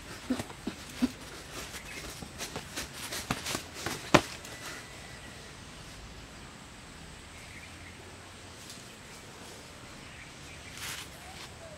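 Footsteps and scuffs of bare feet on dry, leaf-littered ground, a run of sharp knocks and clicks with one much louder sharp knock about four seconds in, then only a quiet, steady outdoor background.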